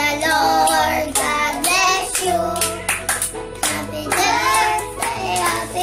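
Group of young children singing a birthday song together and clapping along, over a music track with a steady bass line.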